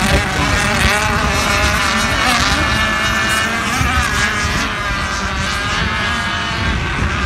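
Several radio-controlled racing boats' small engines running flat out together, a high overlapping whine whose pitch rises and falls as the boats speed round the course.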